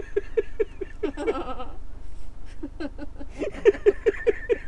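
A man and a woman laughing: quick ha-ha pulses in two bouts, the first dying away about a second in, the second starting about two and a half seconds in.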